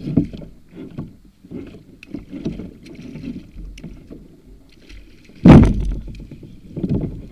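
Irregular knocks and water sloshing against a fishing kayak while a smoothhound is reeled to the side, then a loud splash about five and a half seconds in as the fish is lifted from the water.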